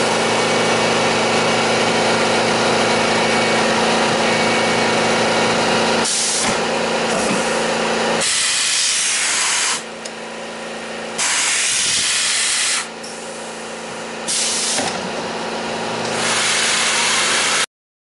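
Tormach PCNC 1100 CNC mill running with a steady hum under a loud hiss of air. About six seconds in the hum drops away and the hissing comes and goes in several bursts of a second or two each. It cuts off suddenly near the end.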